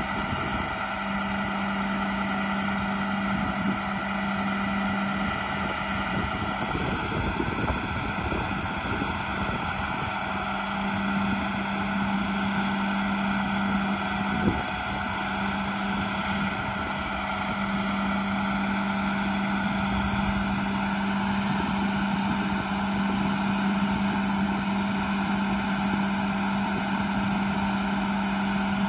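International 7400 truck's diesel engine running steadily, a constant engine hum, with one short knock about halfway through.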